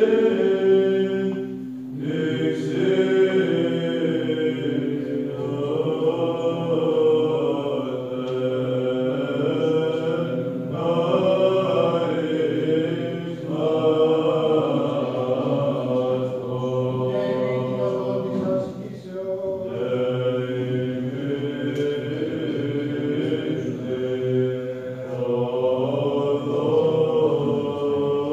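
Male voices chanting Byzantine Greek Orthodox psalmody: a melody sung over a steady, held low drone, with short breaks between phrases.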